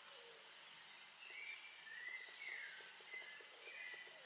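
Steady high-pitched drone of insects in tropical vegetation, with faint short whistled calls scattered through it, several falling in pitch.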